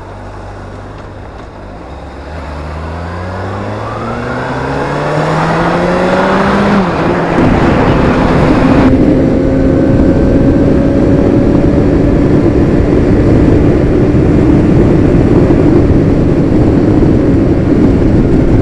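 Motorcycle engine idling, then rising steadily in pitch as the bike pulls away and accelerates. It then runs steadily at highway speed under loud wind noise.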